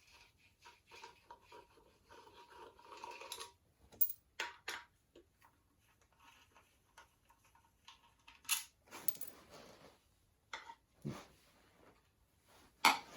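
Scattered light clicks, taps and clatters of hand tools and small metal parts being handled while a motorcycle is worked on, with a sharper knock about four seconds in and again about eight and a half seconds in.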